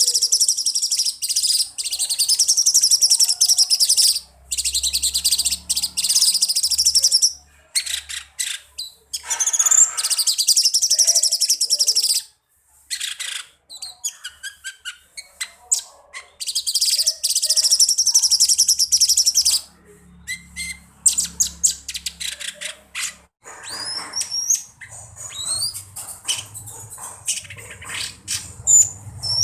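Cucak cungkok singing a shrill, high-pitched song: long, dense trilled phrases of several seconds each separated by short pauses, turning to shorter chirps and quick rising whistled notes in the last third.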